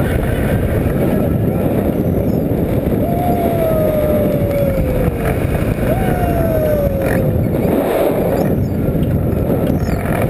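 Strong wind buffeting the microphone in a steady, loud roar. Twice a clear tone slides slowly downward over it.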